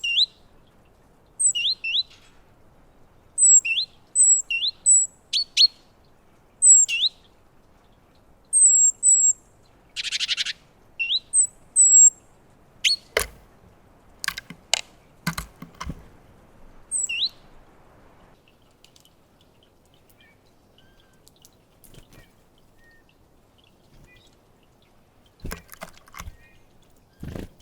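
Great tits calling at close range with quick, high, chirping notes, many in the first twelve seconds and one buzzy rattle about ten seconds in. Later come several sharp knocks on the feeder, a cluster in the middle and a few near the end.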